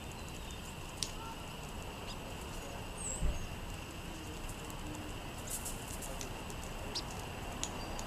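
California quail pecking seed off pavement: scattered sharp ticks, with a quick cluster of them about five and a half seconds in. A short high bird chirp and a soft low thump come a little past three seconds, over a steady faint high-pitched background tone.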